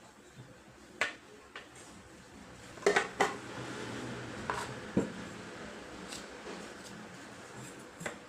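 Kitchenware being handled: several separate clinks and knocks, with the two loudest close together about three seconds in.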